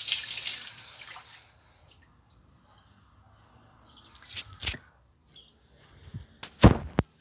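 Water from a garden hose splashing onto a wet tiled floor, a steady hiss that fades out in the first second or so. Later come a few knocks and a louder thump near the end, from the phone being handled.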